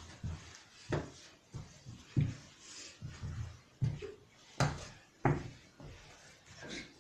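Irregular soft thumps and rustles, about one or two a second, as a child's body rolls and bumps across a rug on the floor.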